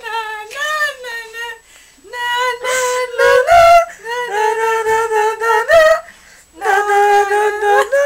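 A high voice singing unaccompanied in long held, wavering notes that jump between pitches. It comes in three phrases separated by short breaks, one ending about a second and a half in and another about six seconds in.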